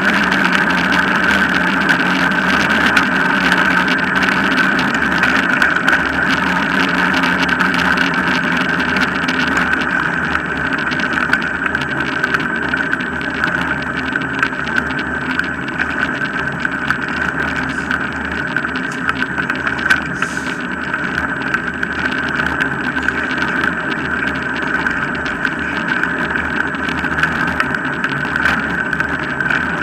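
Steady rolling noise of a dog-pulled rig's wheels on a tarmac path, with a constant high hum running underneath.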